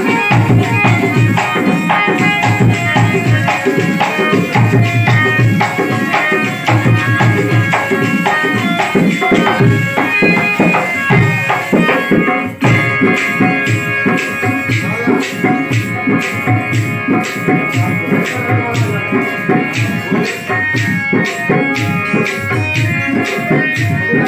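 Live South Asian folk music: a harmonium playing held notes while a hand drum beats a steady, quick rhythm.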